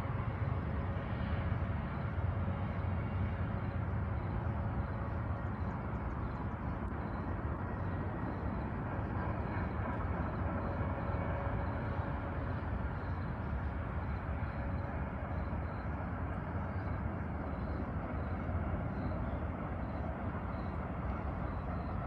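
A train running by out of sight: a steady low rumble.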